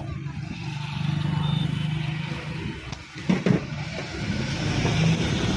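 A motor vehicle engine runs and passes by, its hum swelling and easing. Two sharp knocks come a little over three seconds in.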